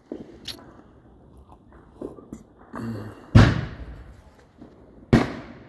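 Two sharp firework or firecracker bangs about a second and a half apart, each with a short trailing echo, the first about three seconds in.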